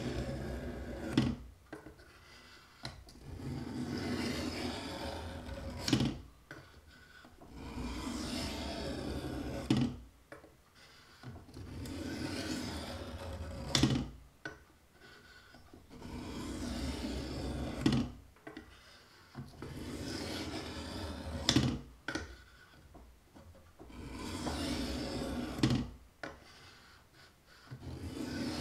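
Kitchen knife blade being drawn against the abrasive of a guided knife sharpener. It rasps in runs of two to three seconds that repeat about every four seconds, and each run ends in a sharp click.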